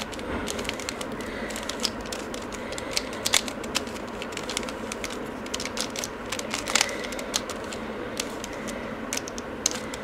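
Mirror cube (3x3 shape-mod puzzle) being turned by hand as a move sequence is repeated: its plastic layers make a quick, irregular run of small clicks and clacks over a steady hiss.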